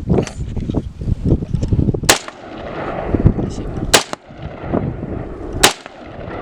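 Three single shots from an AR-15 rifle in 5.56, a couple of seconds apart, with wind buffeting the microphone between them.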